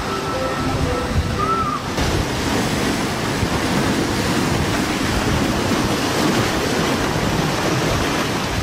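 Sea waves breaking and churning against the rocks of a rocky shore, a steady rushing wash of surf. A short melody plays over the first two seconds and then cuts off.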